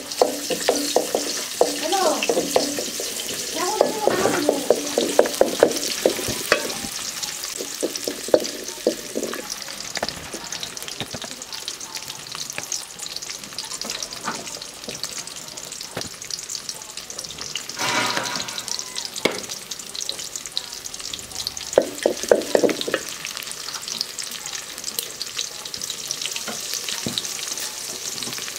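Onions frying in hot oil in an aluminium pot, sizzling steadily, while a wooden spatula stirs and scrapes against the pot with many small clicks. A few short pitched sounds come through, mostly in the first third and again about two-thirds of the way in.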